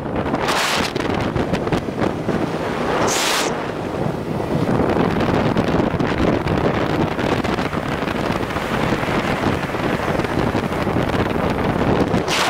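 Steady wind rush on the microphone of a BMW R1100RT touring motorcycle under way, with the bike's boxer-twin engine running beneath it. Two brief louder hisses come about half a second and about three seconds in.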